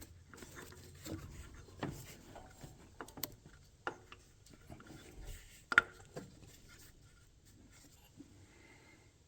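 Hand tools working a power steering pump mounting bolt: scattered light clicks and taps of metal with soft rubbing between them, the sharpest click about six seconds in, quieter toward the end.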